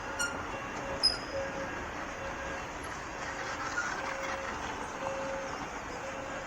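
Steady urban street ambience with traffic noise, and a few short high chirps in the first second or so.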